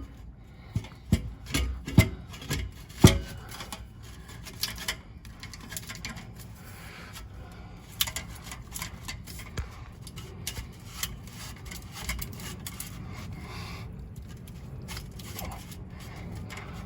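Exhaust pipe being pushed and twisted onto a header collector until it seats. Several sharp metal knocks come in the first three seconds, then scraping and rubbing with light clicks.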